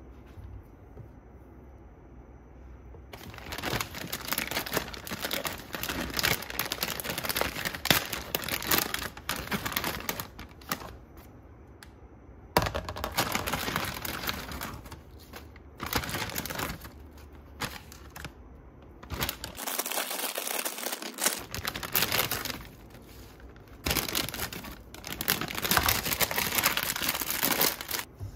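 Plastic produce bags of spinach and kale crinkling in repeated bouts as the leaves are pulled out and dropped into a colander.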